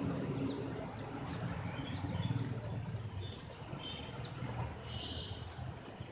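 Baby chicks peeping: scattered short high chirps, with a cluster of quick falling peeps about five seconds in, over a steady low background rumble.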